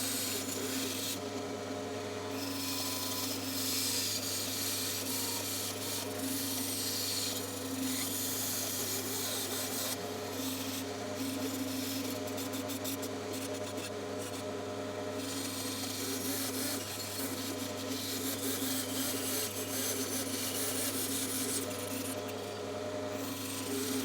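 Bandsaw running with its blade cutting a wooden letter: a steady motor hum under a rasping hiss of the blade in the wood. The hiss drops away briefly several times as the cut pauses.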